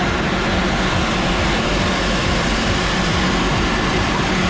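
Foam snow machine blowing artificial snow: a loud, steady rushing noise.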